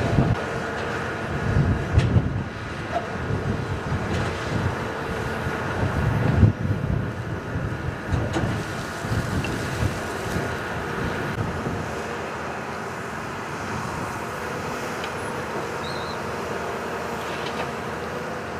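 Cat 320C excavator's diesel engine running at working speed with a steady whine over it, as the machine backfills soil. Wind buffets the microphone in gusts during the first half.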